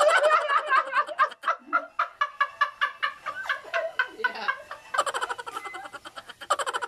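People laughing hard: a rapid run of high-pitched, cackling laugh pulses, several a second, louder again about five seconds in.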